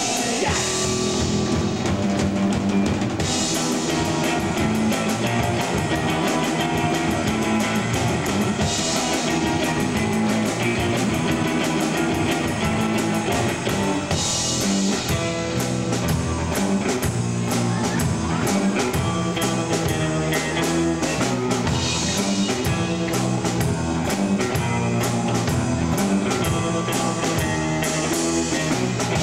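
Live rock band playing an instrumental stretch on electric guitar, electric bass and drum kit, with a busy drum beat and crashing cymbals every five or six seconds.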